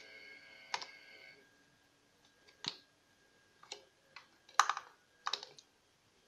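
About seven sharp clicks and light knocks at irregular intervals, from hands handling plastic connectors and wiring in a car's engine bay; the loudest comes a little past halfway.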